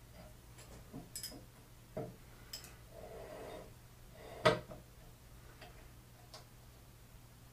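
Scattered clicks and knocks of parts and tools being handled on a K.O. Lee tool and cutter grinder during disassembly, with a brief scrape a few seconds in and one sharp knock about halfway through, over a faint steady hum.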